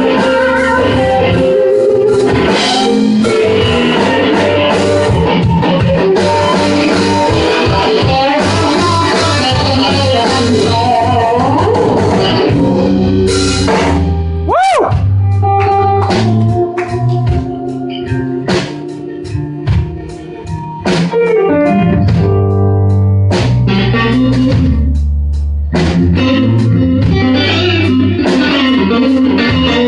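A live blues band playing an instrumental break: electric guitar over drum kit and bass. The first half is dense and full; about halfway through it thins to separate guitar notes and drum hits over a heavy bass line.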